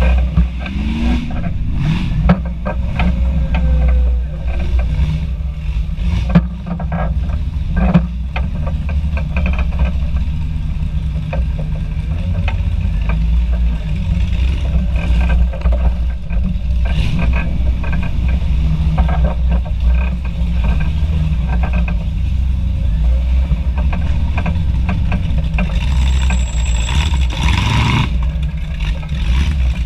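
Off-road vehicle's engine running at low trail speed with a steady low rumble, under frequent clattering knocks and rattles as it crawls over the rough dirt trail. A loud rushing noise lasts about two seconds near the end.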